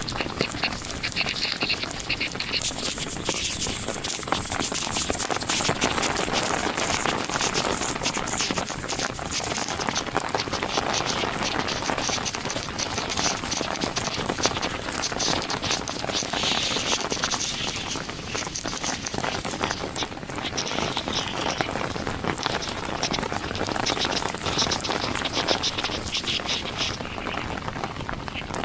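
Heavy monsoon rain falling, a steady dense patter of drops.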